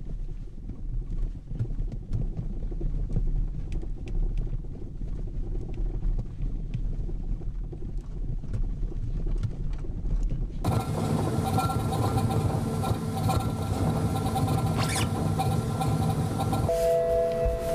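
Low rumble heard inside a car's cabin, with scattered light ticks and clicks, as the car is worked on a shaker test rig that checks for squeaks and rattles. About ten seconds in it changes to the louder, steadier mechanical noise of the rig running, with hums and a brief pair of tones near the end.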